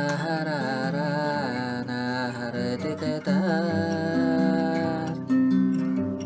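Background music: a wavering, vibrato melody over plucked acoustic guitar, with strummed guitar strokes coming in near the end.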